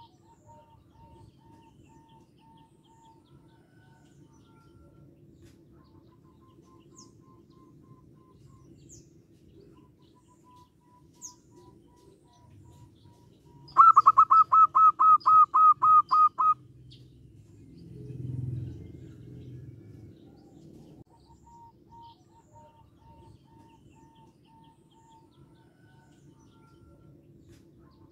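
Zebra dove calling: faint runs of quick repeated notes, then about halfway a loud series of about a dozen clipped notes lasting nearly three seconds. A brief low rumble follows a couple of seconds later.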